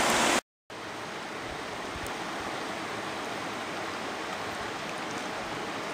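Steady, even rush of a shallow river running over rocks and riffles. The sound drops out briefly about half a second in, then the rush carries on more softly.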